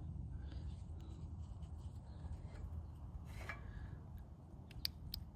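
Light scraping and a few small sharp clicks near the end as test leads are touched to a car battery to power a VVT oil control valve, over a low steady hum. The valve gives no click of its own: it neither opens nor closes, a sign the solenoid is dead.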